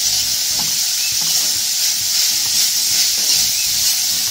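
Minced pork and Thai curry paste sizzling steadily in a hot pan as they are stir-fried, with the light scrape and clink of stirring.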